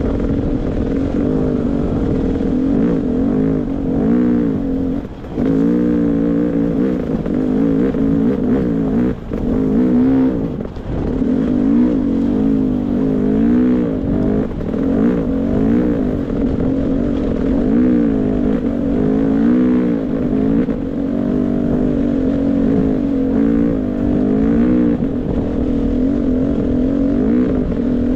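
Beta 300 RR two-stroke dirt bike engine being ridden, its pitch rising and falling constantly with the throttle, and the throttle briefly shut off a few times in the first half.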